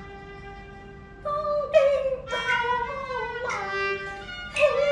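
Cantonese opera accompaniment led by a bowed fiddle: a quiet held note, then about a second in a louder melody with sliding pitches.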